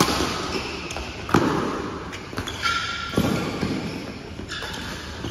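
Badminton rackets hitting a shuttlecock in a rally, three sharp hits about a second and a half apart, echoing in the hall, with a couple of brief squeaks in between.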